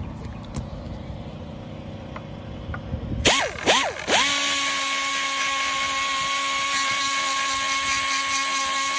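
Air die grinder with a long cutting bit: after a low background hum, it is blipped twice a little over three seconds in, its whine rising and falling, then held at a steady high-pitched whine while cutting a lip out of the plastic mouth of an LS intake manifold.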